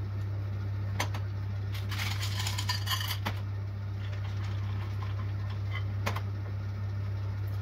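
Small candy-coated chocolate eggs rattling as they are tipped from a small metal bowl into a stainless-steel mixing bowl: a clatter of quick clicks about two to three seconds in, with single metal clinks about a second in and near six seconds. A steady low hum runs underneath.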